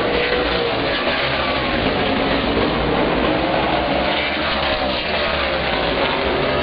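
Outlaw super late model race cars' V8 engines running hard as they race past, a loud continuous engine din whose pitch bends up and down as the cars go by.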